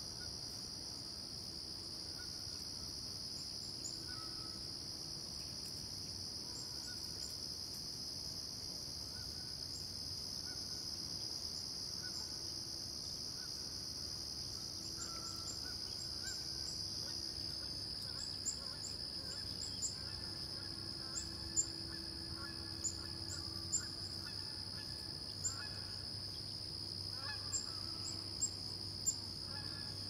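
Steady high-pitched summer insect chorus, with faint bird calls coming and going underneath. In the second half, about ten short sharp ticks stand out above it.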